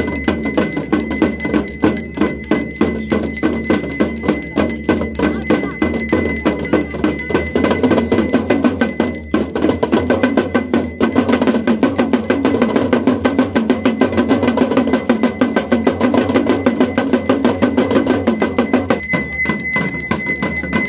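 Ganga aarti ritual music: temple bells ringing continuously over fast, steady drumming on a two-headed hand drum, with voices singing beneath.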